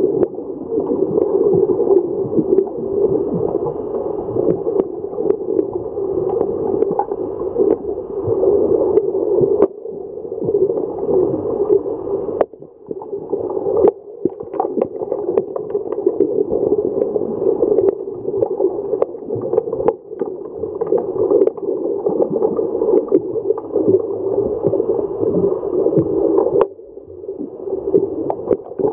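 Muffled underwater rushing and gurgling of a swimming pool, heard through a submerged camera, with frequent sharp clicks and knocks from underwater hockey sticks and the puck on the tiled pool floor. The rush drops away for about a second twelve seconds in, and again near the end.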